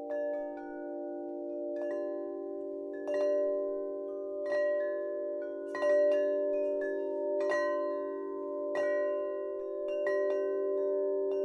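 Meditative ambient music: a steady low drone under ringing struck chimes or bells, one about every second and a half.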